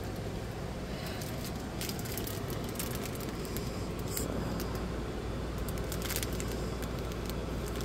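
Clear plastic bag of diamond-painting drills crinkling faintly as it is handled, with a few short crackles over a low steady background hum.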